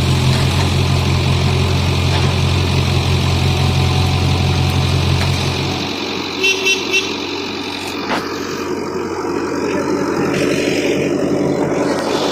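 Backhoe loader's diesel engine running steadily with a deep drone, which drops away about halfway through. Shortly after, a horn gives three quick toots.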